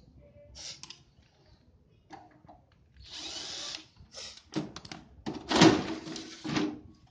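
Cordless drill-driver whirring for under a second as it backs out screws from a CRT television's plastic back cover. It is followed by the plastic housing being worked loose and lifted off with clicks, scraping and knocks, loudest a little before the six-second mark.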